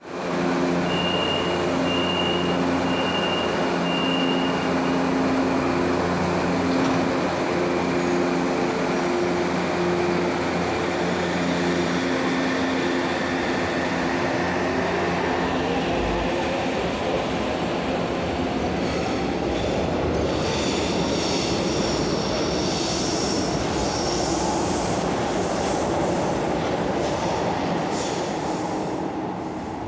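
Metro train at a station: a steady electrical hum with four short high beeps in the first few seconds, then a rising motor whine as a train gets moving, and high-pitched wheel squeal through the second half.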